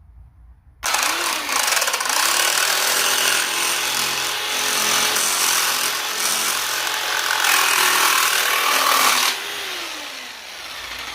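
Jigsaw fitted with a Diablo thick-metal blade, sawing through 1/8-inch aluminium plate. It starts abruptly about a second in, its motor whine rising as it speeds up, and cuts loudly and steadily for about eight seconds. Near the end the motor winds down with a falling whine. The blade cuts easily, "like butter".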